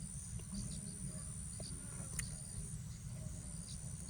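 Outdoor ambience: a steady, high, thin insect trill, with scattered short faint bird chirps, one sharp click about two seconds in, and a low rumble underneath.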